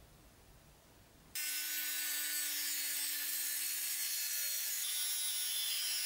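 Rotary tool with a thin cut-off disc cutting sheet metal: it starts abruptly about a second in, then runs as a steady motor tone under a dense, high grinding hiss.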